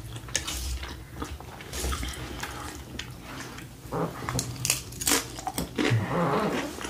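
Close-miked eating: a fork scooping taco salad, then mouthfuls crunched and chewed, with crisp tortilla chips giving short crackly crunches, busiest after a big bite about four seconds in.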